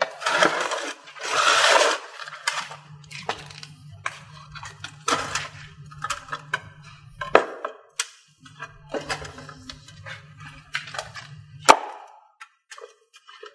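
A cleaver chopping through a grilled turkey on a chopping board: scattered sharp chops and knocks, the sharpest about eight seconds in and near the end, with a loud burst of noise in the first two seconds, over background music.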